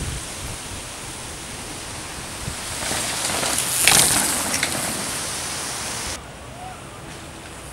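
Steady rushing noise of a downhill mountain-bike run: wind on the microphone and tyres on the dirt trail. It swells with hiss and crackle about four seconds in, then drops abruptly about six seconds in.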